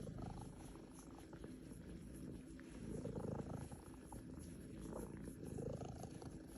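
Cat purring steadily while being massaged, the purr swelling and easing with its breaths, loudest about three and six seconds in.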